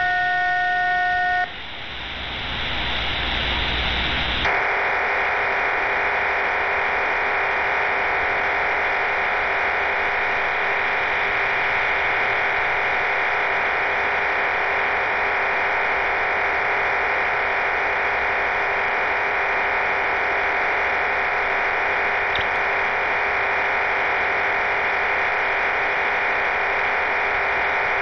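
Cuban numbers station HM01 on 14375 kHz, received on shortwave through an SDR. A few steady tones stop about a second and a half in, then comes a rush of noise, and from about four seconds on a steady static-like hiss of its digital data transmission.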